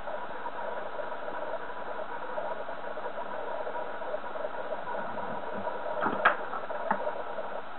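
Steady background hum and hiss, with a few sharp clicks and knocks about six and seven seconds in as a soldering iron handpiece is set down into its stand.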